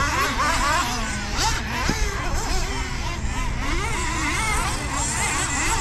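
Several two-wheel-drive gas RC racing trucks running laps, their small engines overlapping in a high-pitched whine that keeps rising and falling as they speed up and slow down around the track.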